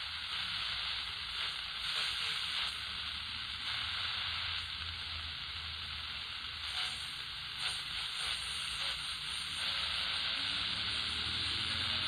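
Static hiss from an Atlanfa pocket multi-band radio's speaker as its dial is tuned across the medium-wave band between stations, with a low hum underneath.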